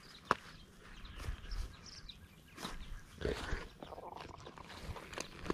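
Faint rustling of clothing and scattered small clicks close to the microphone as a person moves and sits down, with one sharper click about a third of a second in.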